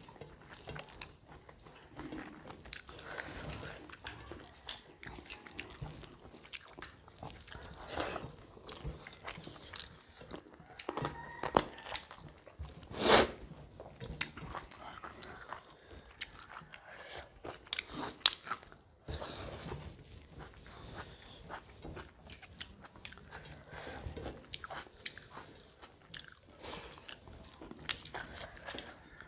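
Two people eating rice, egg curry and chicken liver and gizzard by hand: chewing, and fingers mixing and scooping food on steel plates, with many small clicks. One sharp knock about halfway through is the loudest sound.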